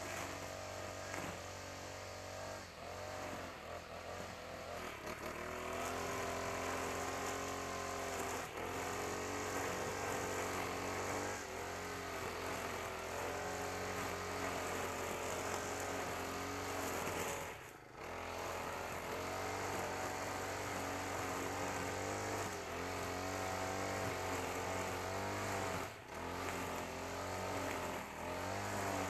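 Honda GX35 four-stroke brush cutter engine running under load while cutting grass, its pitch rising and falling as the throttle is worked, with brief dips about 18 and 26 seconds in.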